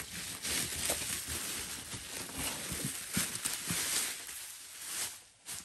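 Bubble wrap rustling and crinkling as it is pulled off a boxed figure, with many small crackles, dying down about five seconds in.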